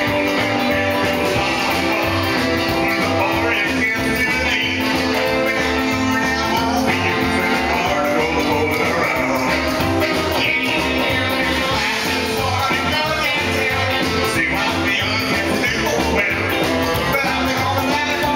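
Live rock and roll band playing over a steady beat: a singer with electric guitar, saxophone and upright bass.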